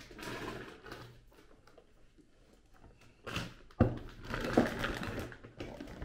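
A blue woven-plastic IKEA shopping bag rustling as it is lifted. About four seconds in there is a sharp thump as the loaded bag is set down on a wooden table, followed by a couple of seconds of crinkling and rustling.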